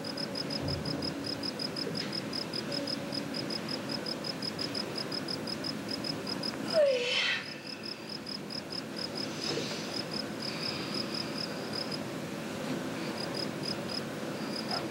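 Crickets chirping in a fast, even pulse of short high chirps. About seven seconds in comes one brief, louder sound that falls in pitch.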